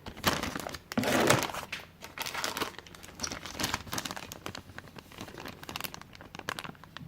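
Thin plastic bags of miniatures being handled, crinkling in irregular crackles, heaviest in the first second or so.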